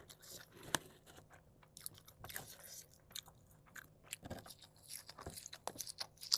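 A person biting and chewing a sesame-oil snack strip close to the microphone: irregular wet clicks and crunches, the sharpest about a second in.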